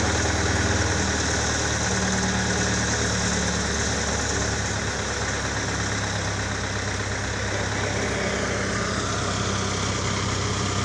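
Diesel engine of a mobile hydraulic crane running steadily at low revs while the crane holds a heavy tank suspended on its hook.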